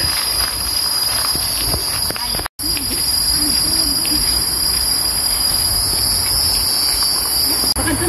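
Steady, high-pitched chorus of tropical forest insects buzzing without a break, cut off briefly for a moment about two and a half seconds in.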